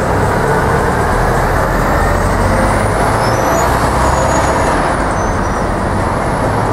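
Articulated city bus pulling away through an intersection, its engine a low rumble that is strongest in the first few seconds, over steady street traffic noise.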